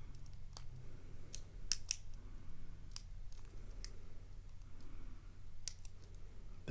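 Scattered light metallic clicks of a lock pick and tension wrench working the pin stack of a challenge padlock, held in a false set while the picker searches for the pin that trips it. About seven or eight sharp clicks come at uneven intervals, a few bunched together near two seconds in.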